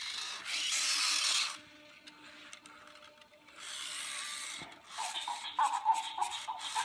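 Spin Master Zoomer Chimp robot toy doing its dance routine: its small speaker plays a rap-like beat while its motors whir. Bursts of hiss come first, then a choppy rhythm in the last couple of seconds.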